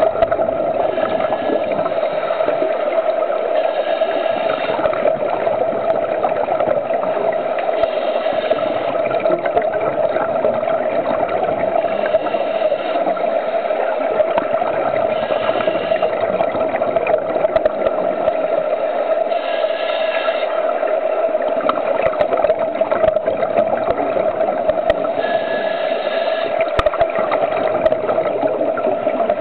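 Underwater sound in a swimming pool: a steady hum, with bursts of bubbles every three to five seconds as scuba divers exhale through their regulators.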